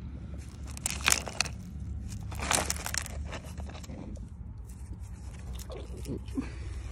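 Rounded river stones crunching and clattering against one another as an agate is worked loose from the gravel by hand, in two short bursts: about a second in and again around two and a half seconds. A steady low rumble runs underneath.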